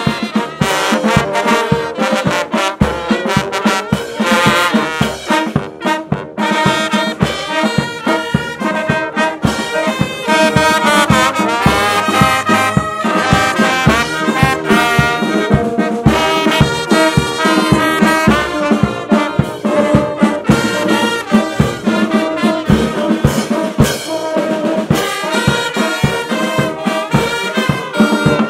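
Brass band playing an instrumental piece: trumpets and trombones carrying the tune over a steady beat.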